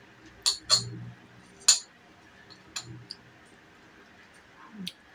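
Metal fork clinking and tapping against a small ceramic plate during eating: a few sharp clinks in the first two seconds, the loudest about a second and a half in, then fainter taps.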